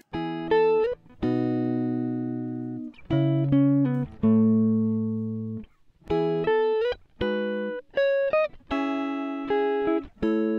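Background music: a plucked guitar melody of single notes and chords, each ringing out and dying away, some sliding up in pitch.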